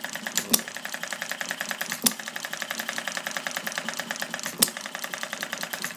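A homemade model hit-and-miss gasoline engine running: a fast, steady mechanical clatter as it coasts, broken three times by a sharp pop as it fires, about two seconds apart.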